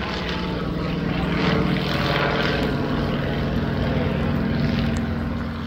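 Propeller airplane's piston engine running as it flies past: a steady engine drone that swells about a second in, stays loud through the middle and eases off near the end.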